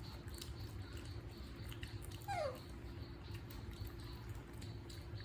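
Baby monkey giving a single short whimpering cry about two seconds in, its pitch sliding quickly downward, over a faint steady hum.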